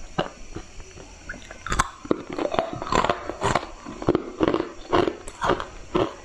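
A person biting into pieces of ice and crunching them between the teeth, close-miked: a sharp crack about two seconds in, then steady crunching chews about three a second.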